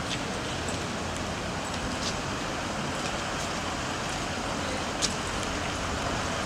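City street traffic noise: a steady wash of road sound, broken by three short sharp clicks, the loudest about five seconds in.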